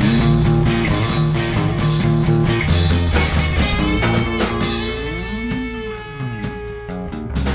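Instrumental psychedelic rock jam by two electric guitars, bass guitar and drums. About five seconds in the bass drops away, leaving a sweeping tone that rises and falls in pitch and a run of quick drum strokes. The full band comes back in near the end.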